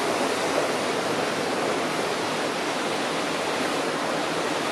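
Steady rush of flowing water, an even noise without breaks.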